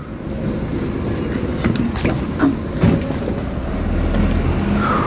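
A bus running, its engine and road noise giving a steady rumble that grows heavier near the end, with a few brief knocks and rattles over it.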